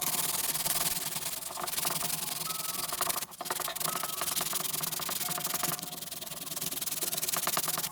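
Hand sanding with 220-grit sandpaper, a steady scratchy rubbing as the thick old swirl-paint layer on the airsoft rifle parts is scuffed up before a new base coat. The rubbing stops briefly about a third of the way through.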